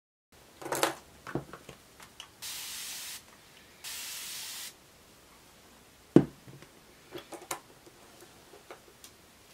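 Two short sprays from an aerosol can, each lasting just under a second, with handling clicks and knocks around them. The loudest sound is a single sharp knock about six seconds in.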